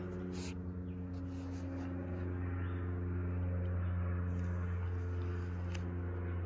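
A plastic-sleeved photo album page being turned, a brief rustle about half a second in, over a steady low hum with evenly spaced overtones; a faint click comes near the end.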